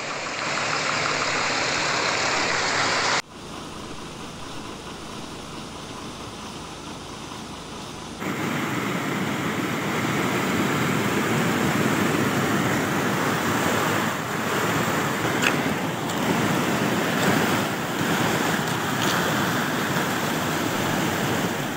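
Floodwater rushing in a swollen stream: a steady noise of flowing water that changes level abruptly about three seconds and eight seconds in, as the shots change.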